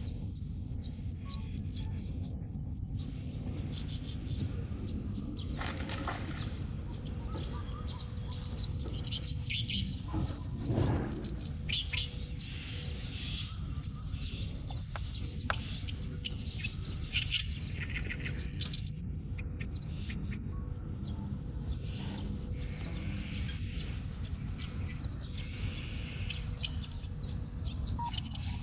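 Birds chirping and twittering in many short, high calls over a steady low background rumble, with a brief low thud about eleven seconds in.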